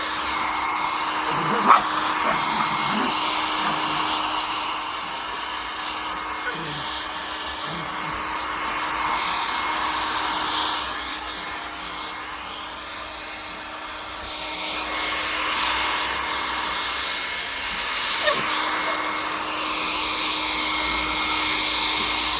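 Hand-held electric hair dryer running continuously, a steady rush of air over a constant motor hum, growing louder and softer by turns as it is moved about while drying a wet pug.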